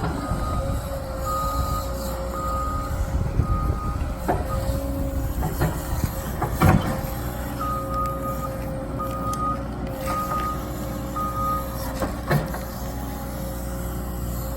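Heavy earthmoving machine's diesel engine running steadily while its backup alarm beeps in evenly repeated short tones, stopping about four seconds in and starting again near eight seconds. A few sharp clanks sound over the engine, the loudest about halfway through.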